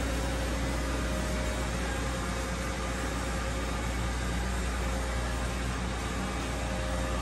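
Powered-up Doosan Puma TT1800SY CNC turning center idling: a steady low hum under an even hiss, with a faint steady whine.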